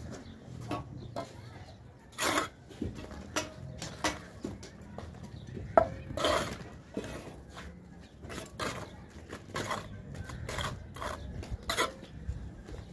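Mason's steel trowel scraping mortar and tapping on bricks during bricklaying, with short irregular clinks and knocks as the bricks are set.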